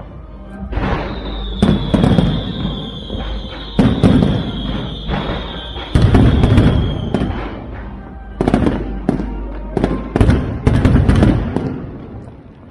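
Fireworks display: aerial shells bursting in a quick series of booms with rumbling between them. A long high whistle slowly falls in pitch from about one second in to about seven seconds in.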